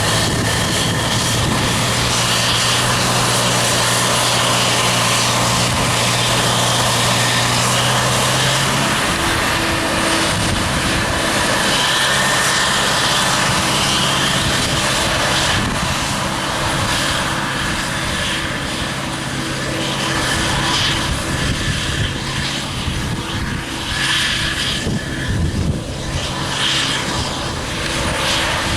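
Claas Jaguar self-propelled forage harvester running steadily under load while chopping maize, a continuous engine drone with noisy machine rush over it. Its tone changes about nine seconds in, and the sound comes and goes more unevenly near the end.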